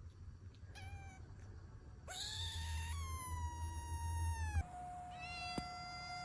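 Domestic cat meowing: a short meow about a second in, then a long drawn-out meow from about two seconds in. It is followed by a steady, even tone that holds to the end, with one click partway through.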